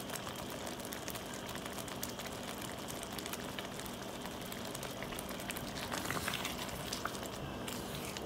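Thick marinara sauce simmering in a stainless skillet, a steady bubbling with many small pops and spatters. Near the end a wooden spoon stirs through the sauce.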